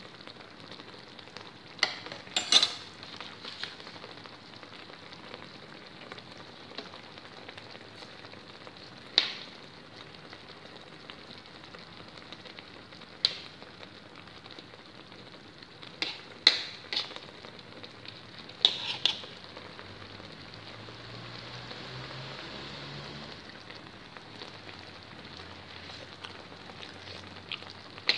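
Fish cooking in soy sauce with garlic leaves in a metal wok, giving a steady hiss. A metal spoon scrapes and knocks against the wok now and then as the pieces are moved.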